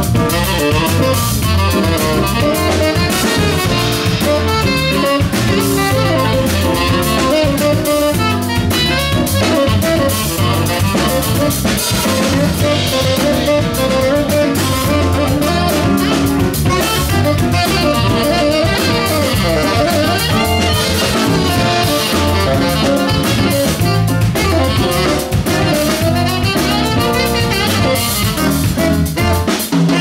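Jazz band playing live: a saxophone lead over a drum kit keeping a steady beat.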